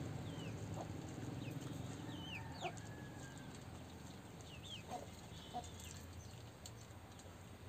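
Faint domestic chickens clucking, with a few short high chirping calls scattered through.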